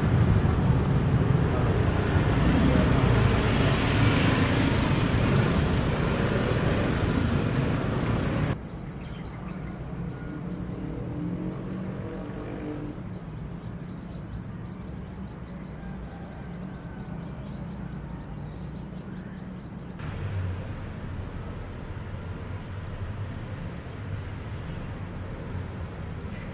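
Outdoor background noise: a loud, even rush for the first few seconds, then after an abrupt cut a much quieter background with a low hum and scattered faint high chirps.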